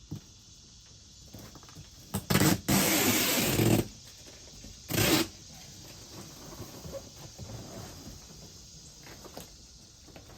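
Rasping rips from a Velcro adhesive fastener piece being worked: a short rip, a loud one about a second long, then a brief one.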